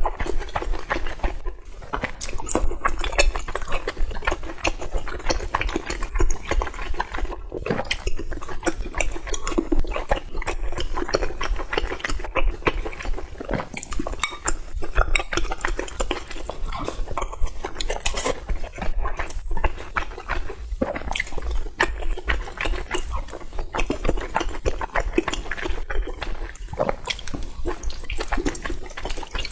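Close-miked eating: a steady run of wet chewing and mouth sounds, with utensils clicking against dishes.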